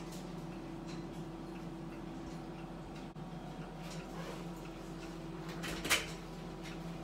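Steady low hum of indoor room background, with faint scattered clicks and one sharper knock about six seconds in.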